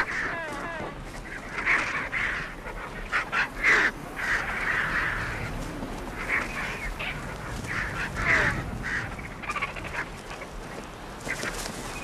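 Cape vultures squabbling over a carcass: irregular harsh, rasping calls and hisses, one after another.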